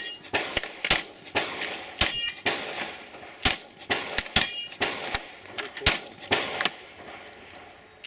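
Rifle shots fired at an irregular pace, about one a second, with steel targets ringing after several of the hits.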